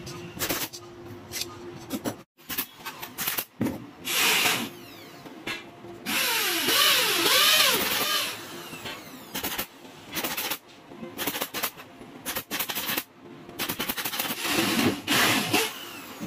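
A power drill runs for about two seconds midway, its pitch rising and falling repeatedly, with a shorter burst a few seconds earlier. Sharp knocks and clatter are scattered around it.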